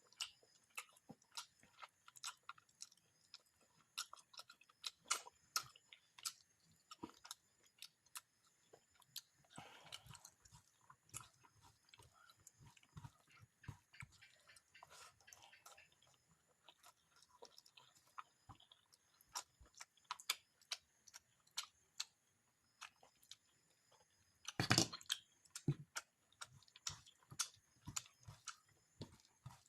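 Close-up eating sounds of a person chewing fish fry and rice with curry: wet chewing and lip smacks with many small clicks, and one louder sharp crunch late on.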